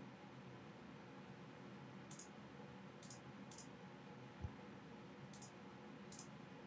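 Faint computer mouse clicks, five of them spread over a few seconds, with a soft low thump in the middle, against near-silent room tone.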